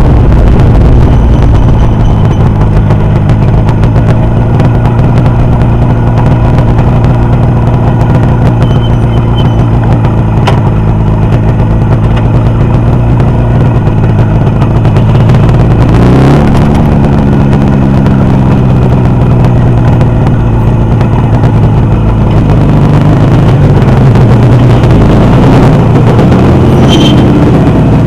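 Motorcycle engine running on a test run. It holds a steady speed, then the revs rise about halfway through and slowly fall back, with another rise near the end.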